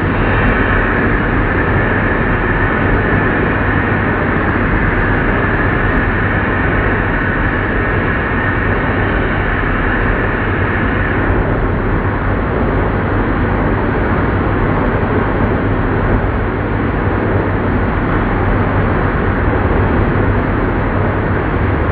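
Old lathe running, a steady loud machine noise with a low hum underneath; a higher whine over it stops about halfway through.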